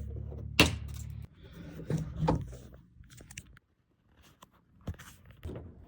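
Hard plastic and metal clicking, knocking and scraping as a broken exterior car door handle is pried and worked out of the door's inner mechanism. A low hum runs under it for about the first second.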